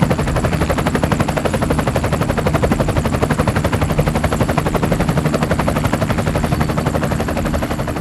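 Helicopter rotor chop: fast, even blade beats over a steady low engine drone, easing off slightly near the end.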